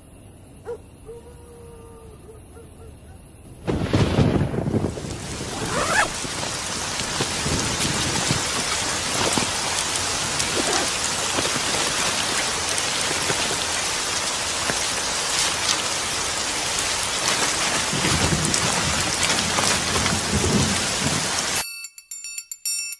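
A heavy downpour that bursts in suddenly with a thunderclap about four seconds in, then pours steadily with more rumbles of thunder, and cuts off abruptly near the end.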